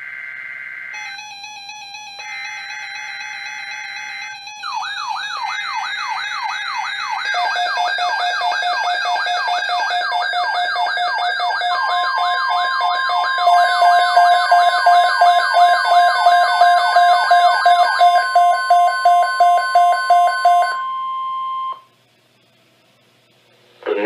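Several NOAA weather alert radios going off together as an alert comes in: first the buzzy data bursts of the broadcast's alert header, then a warbling siren-like alarm, a fast pulsing beep and a steady weather-alert tone layered over one another and growing louder. All of them cut off together near the end.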